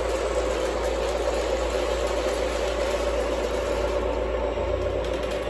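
O-gauge model trains running on FasTrack track: a steady whirring rumble of wheels and motors over the hollow plastic roadbed, with a constant low hum.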